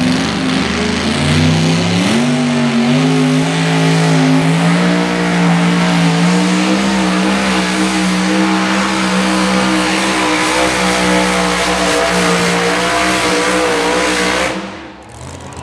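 Two-wheel-drive pulling truck's engine winding up hard about a second in as the pull starts, then held at high revs down the track with its pitch creeping slightly higher. Near the end it cuts off suddenly.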